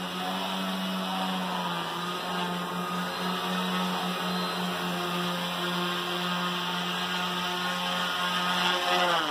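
Bicopter's two EMax brushless motors and propellers buzzing steadily in flight, the pitch wavering slightly with throttle corrections. At the very end the buzz swells and then drops in pitch as the motors are throttled down for landing.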